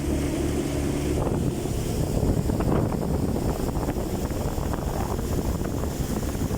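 Motorboat underway: the engine's steady hum is heard for about the first second, then wind buffeting the phone microphone and rushing water cover it.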